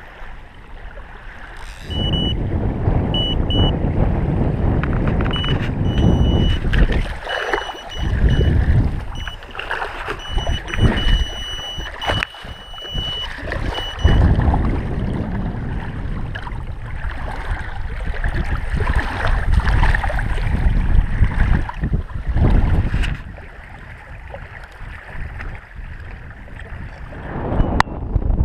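Wind and water rumbling against the camera microphone, jumping up about two seconds in and rising and falling in gusts. A thin high tone comes and goes through the first half.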